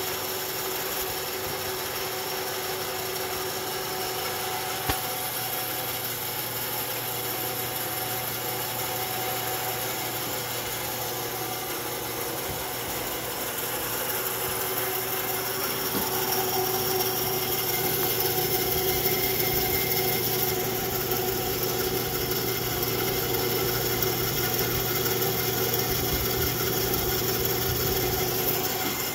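Rockwell Beaver (Delta 28-540) 16-inch band saw running steadily without cutting, its motor, open belt and pulleys humming and whirring. The blade runs on freshly fitted polyurethane wheel tires and the saw runs well on them. The sound grows a little louder about halfway through, with a single click early in.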